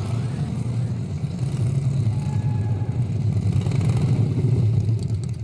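Motorcycle engine running with a deep, steady rumble, growing louder over the last few seconds.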